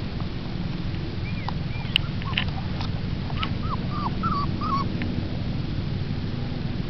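Puppies whimpering and yipping: a series of short, high whines between about one and five seconds in, over a steady low rumble, with a sharp click about two seconds in.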